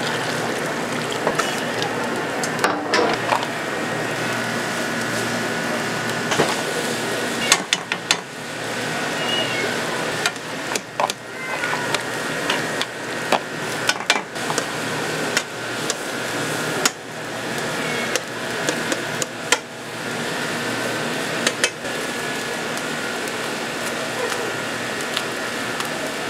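Irregular knocks and clatter of pots and utensils in a street-food stall kitchen, over a steady hum.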